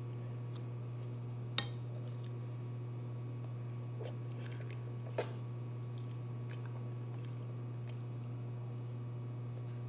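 Close-up chewing and small mouth sounds of someone eating chicken wings, with two sharp clicks about a second and a half and five seconds in, over a steady low hum.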